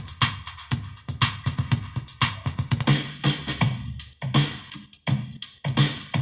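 Electronic music with a drum-machine beat, about four strokes a second, played from a USB pen drive through a Pioneer DEH-1450B car stereo fitted with a Bluetooth/USB board. The beat thins out in the second half and drops out briefly about five seconds in.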